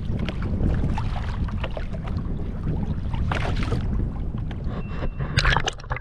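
Water sloshing and gurgling against a kayak hull over a steady low rumble of wind on the microphone. A cluster of sharp clicks and knocks about five and a half seconds in.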